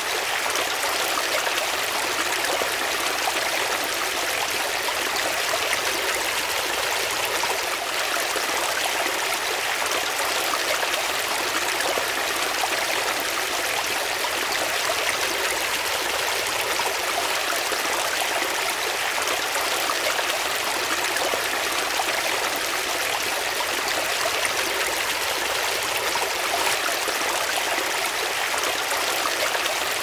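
Water of a shallow rocky stream running and splashing over stones: a steady, unbroken rush with little low rumble.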